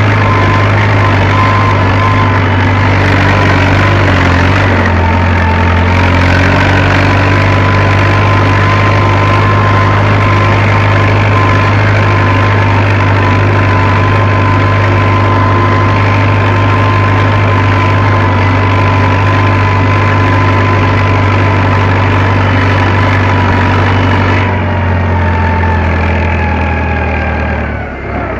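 Fiat Agri tractor's diesel engine running steadily as it works a seedbed, heard from inside the cab. A few seconds before the end the note falls and grows slightly quieter as the engine slows.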